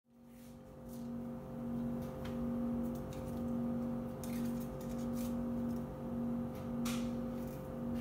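A steady machine-like hum made of several tones, one of them pulsing about one and a half times a second, fading in at the start. Light clicks and rustles come from hands handling dough on a parchment-lined baking tray.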